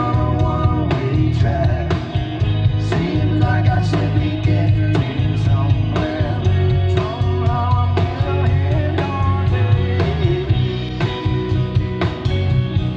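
Live rock band playing: electric guitars, electric bass and a drum kit, with a steady driving beat.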